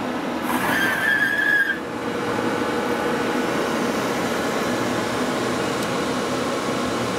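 Robotic cartridge accessor of a Quantum Scalar i6000 tape library travelling on its rail: a steady mechanical whir, with a brief high squeal from about half a second to nearly two seconds in.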